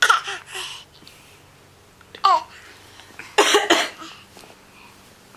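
A person coughing in short fits: a pair of coughs at the start, a single cough about two seconds in, and another pair about three and a half seconds in.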